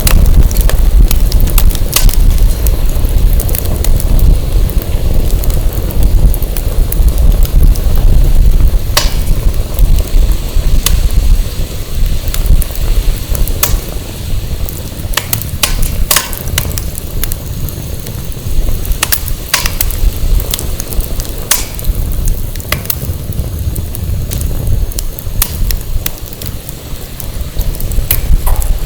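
Wood fire burning with irregular sharp crackles and pops from the burning firewood, over a low wind rumble on the microphone that is heavier in the first third and eases after that.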